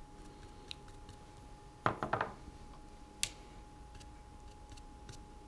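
Quiet room tone with a faint steady hum, broken about two seconds in by a quick cluster of light knocks and, a second later, a single sharp click: handling noise from brush work at the painting table.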